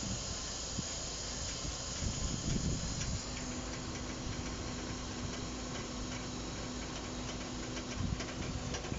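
Steady hiss of air under a truck, joined about three seconds in by fine rapid ticking and a steady low hum that stops near the end.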